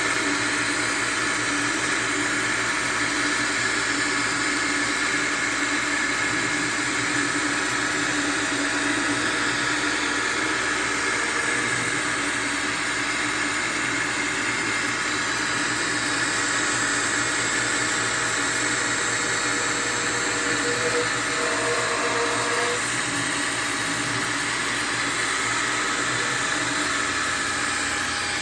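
Optimum CNC milling machine running steadily, its spindle whirring as it mills the workpiece. A short change in tone comes about three-quarters of the way through.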